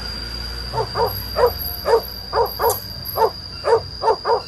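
A dog barking in a quick series, about ten short barks beginning about a second in.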